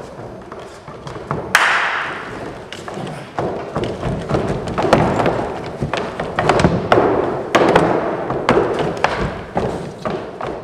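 Thumps and knocks from performers' feet and a large wooden board on a wooden stage, many in quick, uneven succession, with a loud crash about a second and a half in.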